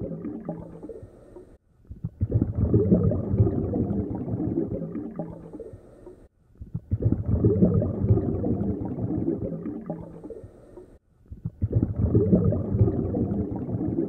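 Underwater gurgling and rumbling picked up by the submerged camera, coming in three surges about every four and a half seconds. Each surge starts sharply after a brief hush and then fades.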